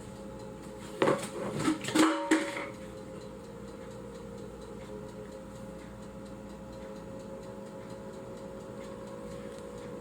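Lego EV3 robot clattering: a burst of sharp plastic clacks and rattles about a second in, lasting a second and a half, as it makes quick turns. After that only a steady low hum.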